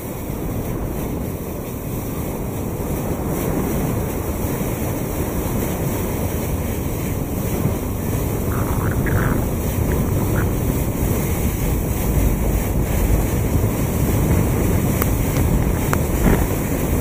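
Wind buffeting the microphone over the rush of sea water breaking along the hull of a moving boat, a steady noise that grows gradually louder.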